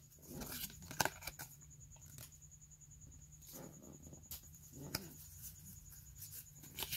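Pokémon trading cards handled in the hands: soft slides of card against card, with a handful of light clicks and flicks as they are sorted and fanned out.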